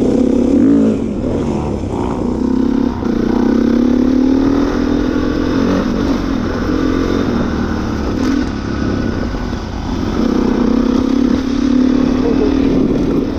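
Dirt bike engine running under way, heard close from on board. Its pitch climbs as the rider accelerates, drops back about halfway through, then climbs again near the end.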